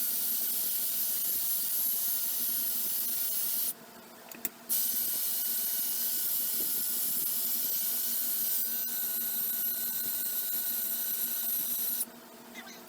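Electric drill running against the metal of a blacksmith vise, cleaning up around a bolt. It stops just before four seconds in, gives a short burst, starts again about a second later and stops near the end.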